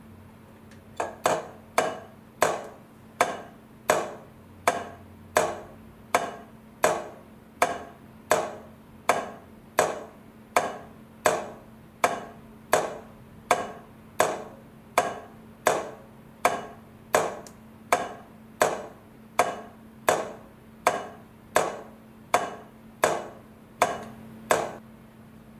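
Railway crossing light flasher clicking as the lamps alternate. It starts about a second in and keeps an even beat of roughly three clicks every two seconds, each click with a short decaying tail, over a faint steady hum.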